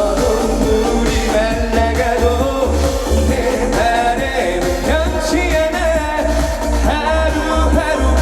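Live trot song: band backing with a steady, pulsing bass beat and a voice singing the melody.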